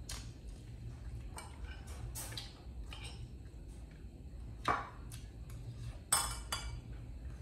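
Spoon clinking and scraping against a bowl during feeding: a scattering of light clicks, with two louder clinks at about four and three-quarters and six seconds in.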